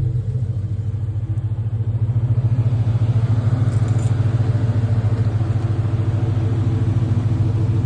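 Car engine idling steadily, a low hum with rapid, even pulsing.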